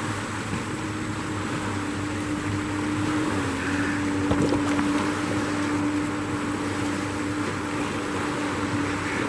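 Motorboat engine running steadily, its pitch dropping slightly about three seconds in, over wind and water noise, with a light knock midway.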